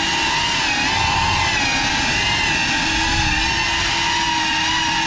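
GEPRC FPV quadcopter's brushless motors and propellers whining at fairly steady throttle as heard from the onboard camera, the pitch wavering slightly with small throttle changes over a rush of prop wash.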